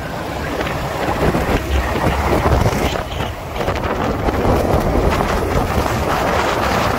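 Wind buffeting the microphone of a moving motorcycle, with the bike's engine running steadily underneath.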